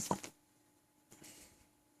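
A man's hiccup at the start: a sharp sudden catch followed at once by a short pitched tail. A soft hiss follows about a second later.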